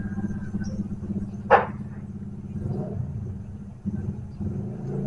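A steady low engine rumble, like a motor running nearby. About a second and a half in, one short, loud squeak falls quickly in pitch.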